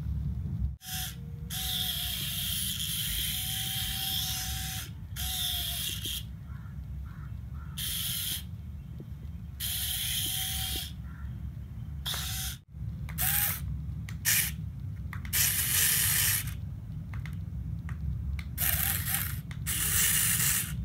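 Small electric motors of a homemade toy tractor whirring through plastic gears in short bursts, switched on and off about ten times. A steady low hum runs underneath.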